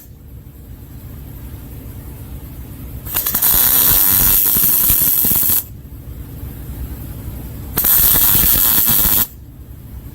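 Two bursts of MIG welding on a 1965 Chevrolet C10's steel rocker panel and cab post, a long one of about two and a half seconds and a shorter one of about a second and a half, with a low hum in the pauses. The welder puts the bad weld down to contamination from paint left on the rocker edge.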